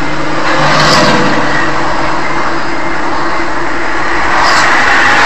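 A car driving: steady engine and tyre noise.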